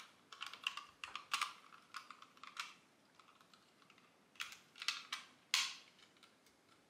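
Plastic Mega Construx building pieces clicking and rattling as they are handled and pressed onto the red shell of a construction-set Poké Ball: a run of small clicks, a short lull about three seconds in, then a few sharper clicks.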